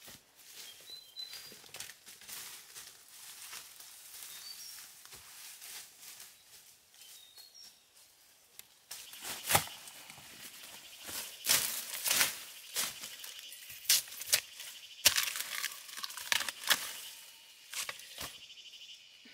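Dry leaves and plant stems rustling and snapping as a person pushes through and pulls at forest undergrowth, with a run of loud sharp cracks from about halfway on. A few short bird chirps sound in the first half.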